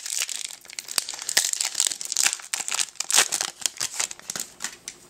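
Foil wrapper of a Yu-Gi-Oh! booster pack crinkling as it is torn open by hand: a dense run of sharp crackles that thins out near the end.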